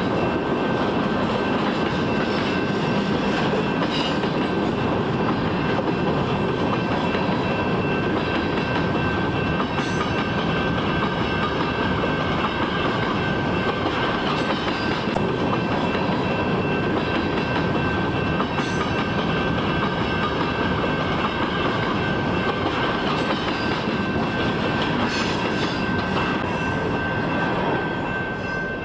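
Freight cars, covered hoppers and tank cars, rolling past with a steady rumble of wheels on rail. A thin, steady high-pitched tone runs over it, and a few sharp clacks come now and then. The sound dips slightly near the end.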